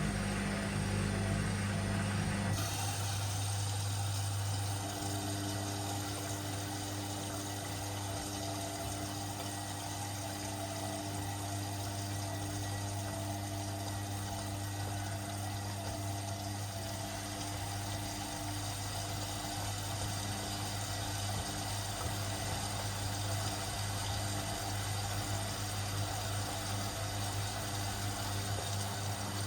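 Washing machine running mid-cycle with a steady low hum. About two and a half seconds in, part of the sound cuts out abruptly and the hum carries on steadily.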